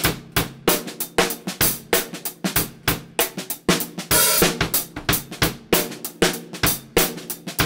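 Acoustic drum kit played in a steady beat, with kick, snare and hi-hat and a cymbal crash about four seconds in. It is picked up by a single budget condenser microphone, the Neewer NW-700, rather than a multi-mic setup.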